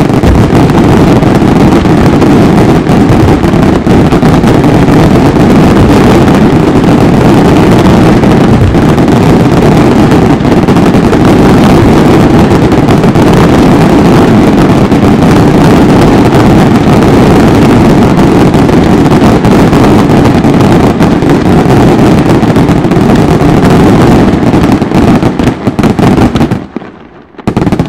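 Fireworks: a dense barrage of aerial shell bursts and crackling stars, so many and so loud that they merge into one continuous din. It drops away suddenly near the end, leaving a few separate bangs.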